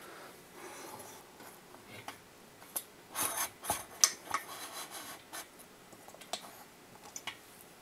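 Handling noise as a camera is repositioned by hand: scattered rubs, scrapes and small clicks, with the sharpest knock about four seconds in.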